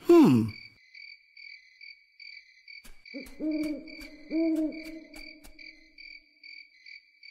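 Spooky night sound effects from the stage's recorded show track: a high chirp pulsing about three times a second, like crickets, with two owl hoots in the middle.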